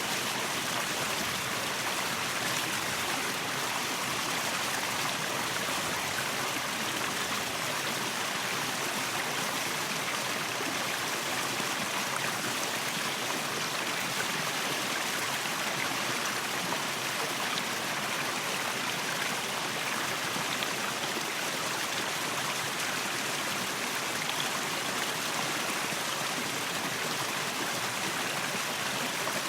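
Waterfall: a steady rush of falling water, an even hiss weighted toward the high end with no breaks or changes.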